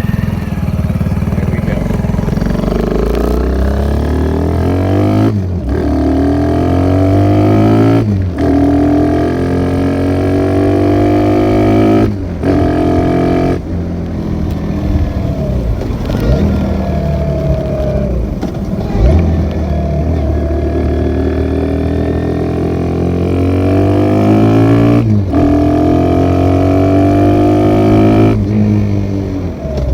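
Kawasaki Z125 Pro's single-cylinder engine through a Leo Vince aftermarket exhaust, riding under load. The revs climb, then break off and drop sharply at each gear change, several times over.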